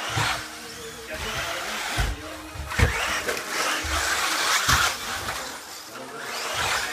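Team Associated RC8.2e 1/8-scale electric buggy running on a plywood track: its motor whine and tyre noise surge and fade with the throttle, with several sharp thumps as the buggy hits and lands on the plywood ramps.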